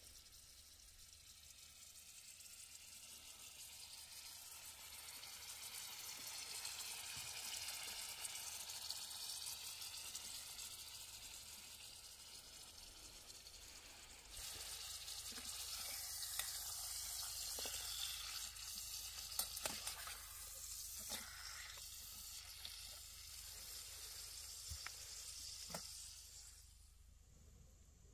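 Steaks frying in garlic butter, sizzling steadily in a small pan on a gas canister camping stove. The sizzle turns louder about halfway through, with a few short clicks and taps as the meat is handled in the pan, and dies down near the end.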